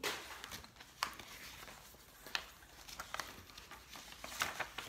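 Paper rustling and crinkling as receipts and documents are handled and leafed through, with a few sharp crackles.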